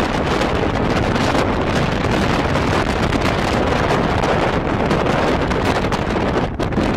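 Strong wind blowing across the microphone on the open deck of a cruise ship at sea: a loud, steady rush.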